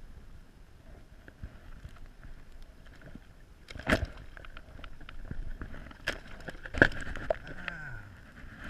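Knocks and rustling of close handling on a kayak, with two loud thumps about four and seven seconds in.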